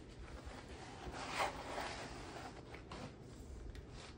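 Faint rustling of a diamond painting canvas's clear plastic film as a hand rubs over it and the canvas is shifted, with a soft swish swelling about a second in.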